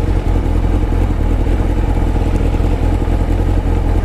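Kawasaki ZX-9R's inline-four engine running at steady revs, with a heavy low rumble and no rise or fall in pitch.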